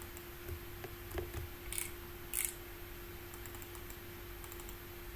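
Scattered clicks and keystrokes on a computer keyboard and mouse, with two sharper clicks about two seconds in and a quick run of light taps a little later, over a faint steady hum.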